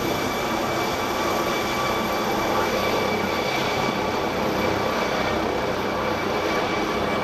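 London Air Ambulance MD 902 Explorer helicopter climbing away overhead after take-off: steady rotor and turbine noise with a high whine held over it.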